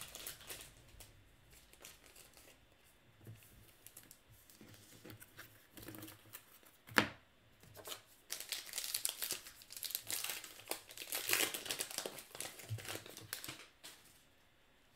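Baseball card pack's wrapper being torn open and crinkled: soft handling rustles, a sharp snap about seven seconds in, then several seconds of dense crinkling and rustling.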